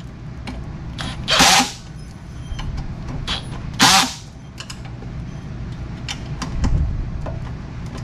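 Cordless power driver driving in a screw in two short bursts of about half a second each, a couple of seconds apart, with a few faint clicks between.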